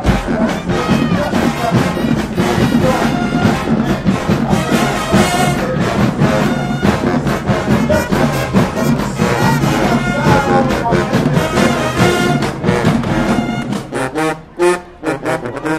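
High school marching band playing brass-heavy music, with sousaphones in the low end. Near the end the full playing thins out to a few separate hits.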